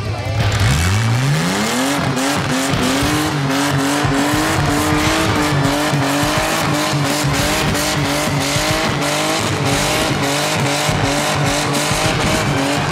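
Small old Toyota sedan doing a burnout: the engine revs up sharply about half a second in and is held at high revs, wavering slightly, while the spinning rear tyres squeal and hiss.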